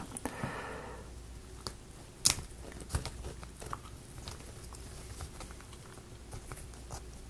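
Thin laser-cut plywood model parts being handled and pressed together: faint, scattered clicks and taps of wood on wood, the sharpest a little over two seconds in.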